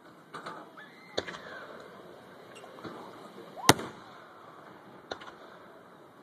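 Aerial fireworks going off: a string of sharp bangs at uneven intervals, the loudest about two-thirds of the way in.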